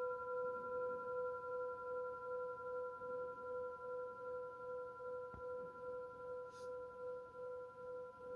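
A metal singing bowl ringing out after being sounded, holding a steady tone with a few clear overtones. The tone wavers in slow, regular pulses and slowly fades. A small click sounds about five seconds in.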